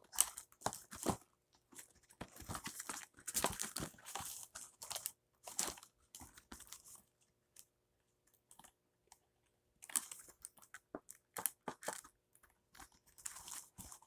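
A homemade paper infinity cube being flipped and folded in the hands: irregular bursts of paper crinkling and light clicks, with a pause of a few seconds in the middle.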